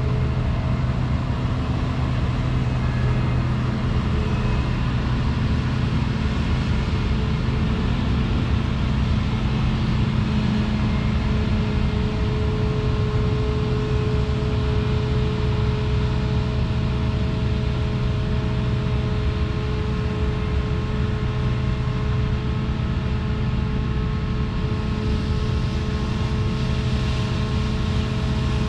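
Claas Lexion 430 combine harvester running steadily while threshing rapeseed: a constant engine drone with a few steady whining tones from the machinery, and a hiss that grows a little near the end.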